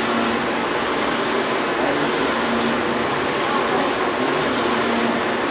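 UV flatbed printer running as it prints on a large plastic sheet, its print-head carriage shuttling back and forth in a steady mechanical whir that repeats a little more than once a second.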